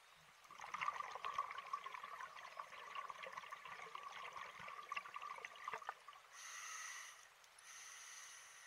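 Scuba diver's exhaled breath bubbling and crackling out of the regulator underwater for about five seconds, then a steadier hiss with a whistling tone near the end as the regulator delivers the next breath in.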